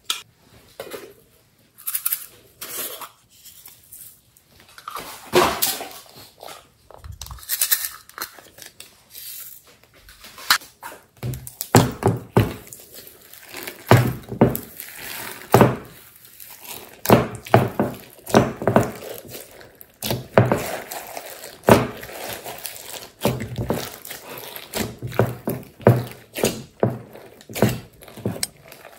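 Slime being squeezed, folded and pressed by hands in a glass dish: a steady run of irregular wet squelches and popping clicks of trapped air, with some duller thuds as the mass is pushed down.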